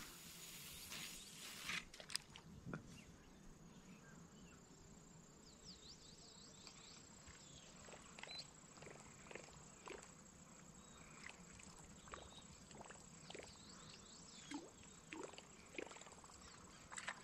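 Near silence, broken by faint, irregular clicks and ticks and a few faint high chirps.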